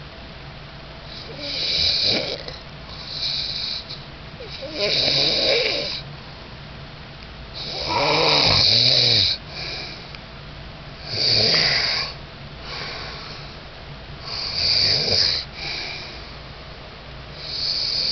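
A man snoring in his sleep: a loud snore about every three seconds, each followed by a shorter, quieter breath, with the longest and loudest snore about midway.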